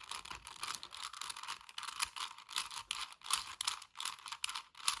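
A plastic 4x4 Rubik's Cube being turned quickly by hand, its layers clicking and rattling in rapid, irregular strings of clicks.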